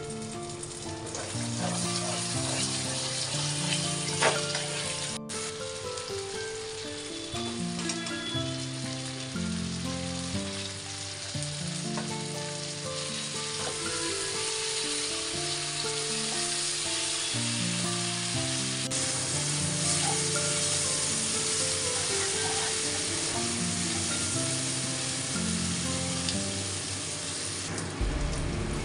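Food sizzling as it fries in hot oil, a steady hiss that changes near the end, under background music with a plain melody.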